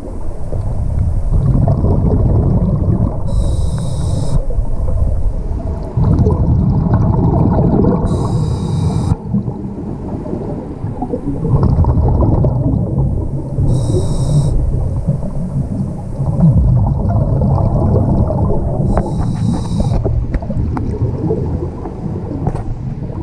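Scuba diver breathing through a regulator underwater: a short hiss on each inhale, four times about five seconds apart, and between them the longer, louder low rumble of exhaled bubbles.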